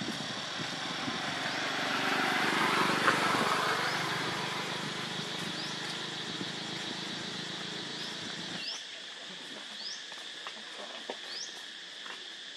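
Outdoor ambience: a steady high insect drone with several short rising bird chirps. In the first part a low rumbling noise swells and fades, then cuts off suddenly about two-thirds of the way in.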